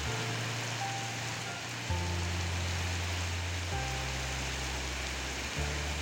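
Background music of low held bass notes, changing about every two seconds with faint higher notes above, over the steady hiss of heavy rain on a road.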